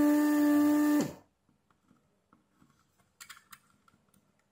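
Vacuum pump of a Weller WR3M rework station's desoldering iron running with a steady hum, then switched off about a second in, its pitch falling as it winds down. After that, near silence with a few faint clicks a couple of seconds later.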